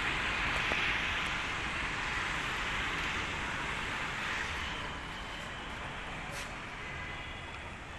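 Steady rushing background noise outdoors, with no distinct events, easing off a little about halfway through.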